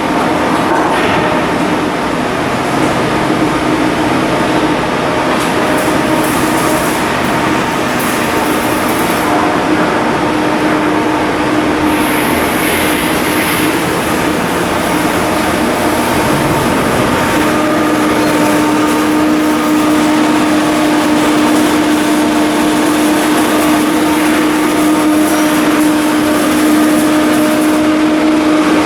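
Heavy machinery running steadily, a continuous loud noise with a held mid-pitched hum that steadies and strengthens about two-thirds of the way through.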